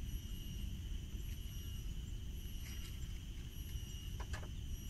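Steady high-pitched insect drone over a low rumbling background, with a few faint clicks near the end.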